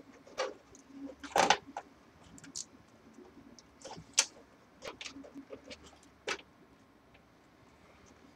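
Scattered light clicks and knocks of an Asus P8P67 Pro motherboard being lowered and worked into place inside a Cooler Master HAF X steel case, the board knocking against the case; the loudest knock comes about one and a half seconds in.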